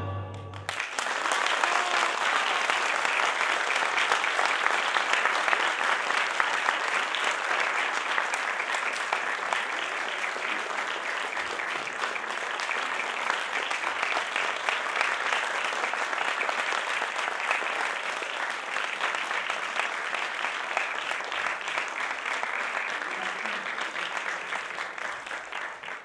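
Theatre audience applauding: dense, steady clapping that starts as the final orchestral chord dies away about half a second in and eases slightly near the end.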